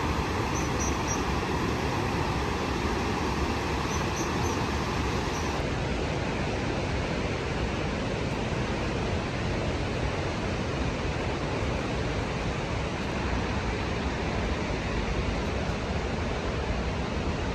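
Steady roar of the Rhine Falls' rushing water, an even rumbling hiss. Its tone shifts slightly duller about five seconds in.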